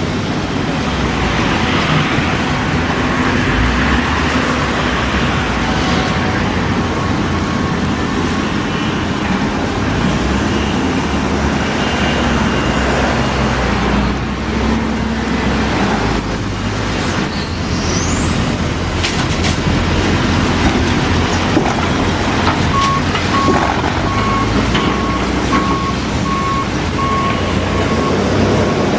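Heavy equipment's diesel engine running steadily with a deep rumble, joined near the end by a repeating beeping alarm.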